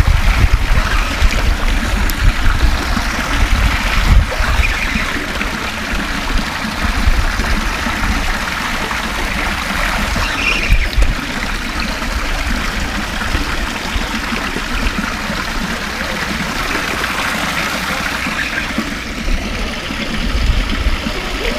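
Wind buffeting an action camera's microphone: a gusty low rumble over a steady rushing hiss.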